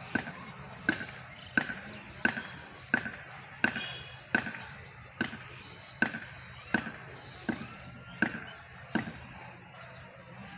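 Steady rhythmic knocking, about three sharp blows every two seconds, like chopping or pounding, each a dull thud with a sharper crack on top.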